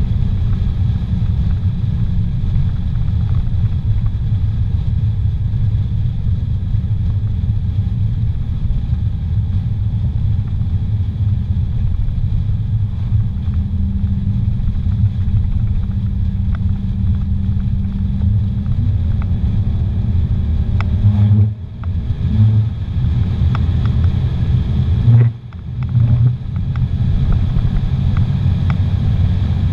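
Steady low rumble of a car's engine and tyres on pavement, heard from inside the cabin at speed. Twice, about two thirds of the way in, the engine note climbs and then briefly cuts out.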